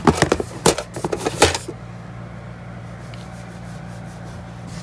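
A quick run of rustles, knocks and clicks for about the first second and a half, then only a steady low hum.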